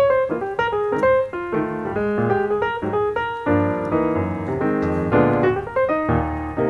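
Background piano music playing a melody over chords.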